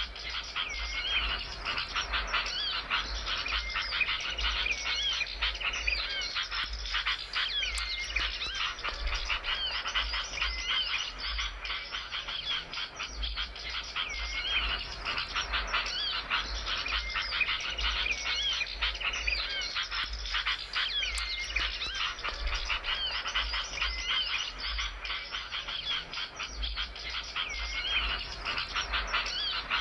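Small songbird calling continuously in rapid, dense chattering trills, with short sweeping whistled notes mixed in.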